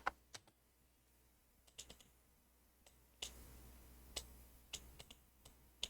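Scattered clicks of a computer mouse and keyboard, about a dozen short sharp clicks spaced irregularly, some in quick pairs and triples, as ladder-logic contacts are entered in PLC programming software.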